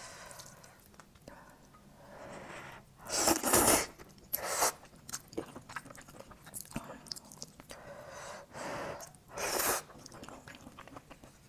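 Close-up mouth sounds of eating grilled oysters in garlic sauce: quiet chewing with a few loud, short slurps, the loudest about three seconds in, another just after and one near the end.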